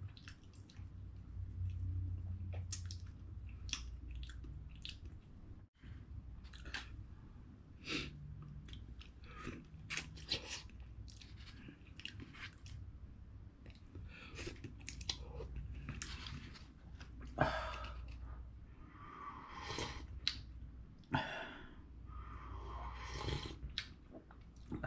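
A person eating instant tonkotsu ramen from a cup: chewing, with many short wet mouth clicks and smacks. Near the end come longer slurps as broth is sipped from the cup.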